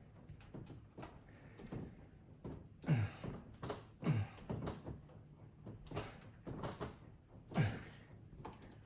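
Freezer door and its add-on child-proof lock being handled: a string of clicks and knocks, with three louder thunks about three, four and seven and a half seconds in.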